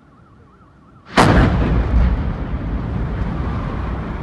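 A faint wavering high tone, then about a second in a sudden loud explosion that decays into a long, low rumble.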